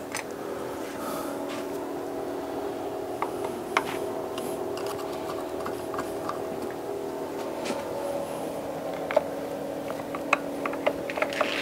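Scattered light clicks and taps of a hand tool on engine parts, over a steady hum.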